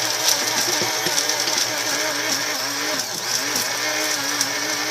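Countertop blender running steadily, crushing ice cubes into a chocolate protein shake, its motor pitch wavering up and down as the ice churns against the blades.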